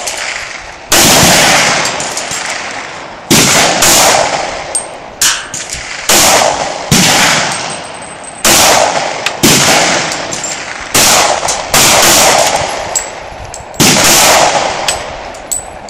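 FN FNX-40 pistol firing reloaded .40 caliber rounds: about a dozen shots spaced roughly a second apart, each followed by a long echo.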